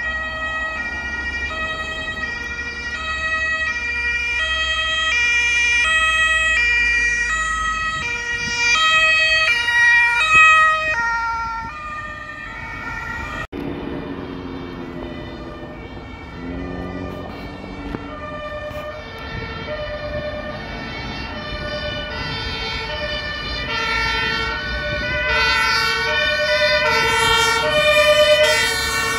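Two-tone German emergency sirens (Martinshorn) on a convoy of Red Cross ambulances and rescue trucks, each alternating high and low notes, several sirens overlapping out of step, with engines and tyres rumbling under them. The sirens swell as vehicles pass, loudest about a third of the way in and again near the end, and break off sharply for an instant about halfway.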